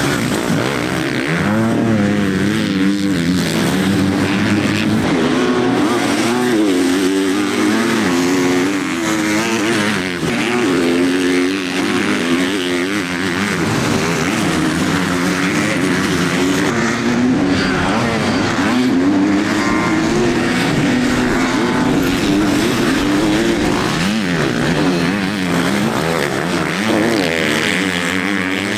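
Motocross bike engines racing on a dirt track, their pitch rising and falling constantly as riders open and close the throttle.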